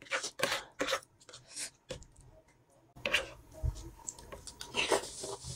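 Metal spoon and fork clicking and scraping against a plate as spicy aloo nimki is scooped up. There is a quick run of clicks, a short pause about two seconds in, then more.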